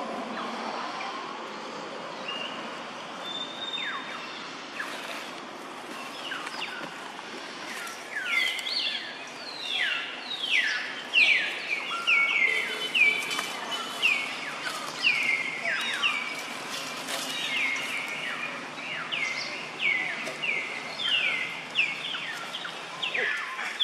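Birds calling over a steady outdoor background hiss: a few falling notes at first, then from about eight seconds in a long, busy run of short calls that each drop quickly in pitch, repeated over and over.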